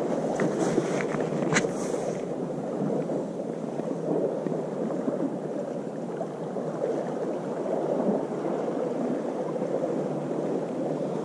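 Steady wash of sea waves on harbour rocks. A few light clicks and a short rustle come in the first two seconds.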